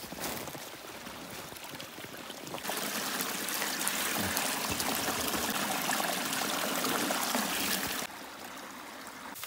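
Water running and splashing around a plastic gallon jug, a steady rushing that grows louder about three seconds in and drops away suddenly about a second before the end.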